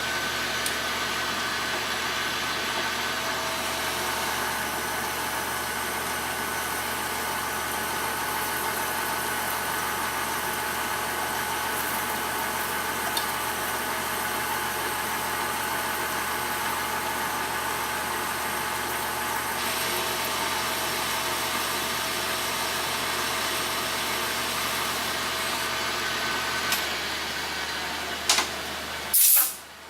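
1940s South Bend lathe running steadily, its motor and gearing giving a constant hum with a steady whine. Near the end it stops with a couple of sharp clunks.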